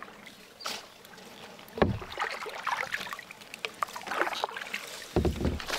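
Kayak paddle strokes: the blades dipping and splashing in shallow water, with scattered small clicks and two dull knocks, one about two seconds in and one near the end.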